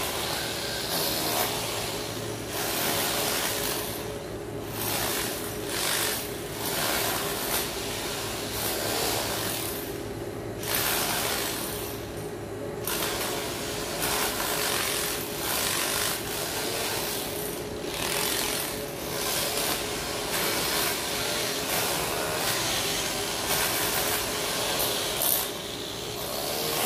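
A steady mechanical hum with a rasping, grinding noise over it that drops out briefly a few times.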